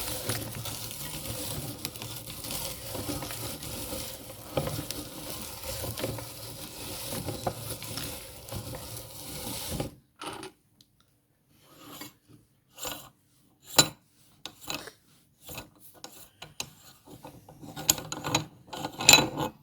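Meat grinder crushing chocolate sticks: a continuous crunching grind for about ten seconds that stops suddenly. After that come scattered sharp clicks and clinks, the loudest near the end.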